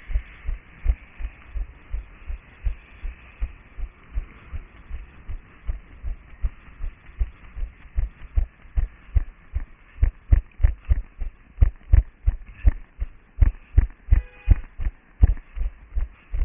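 A runner's footsteps heard through a head-mounted GoPro, a steady run of low thumps about three a second that grow louder about ten seconds in.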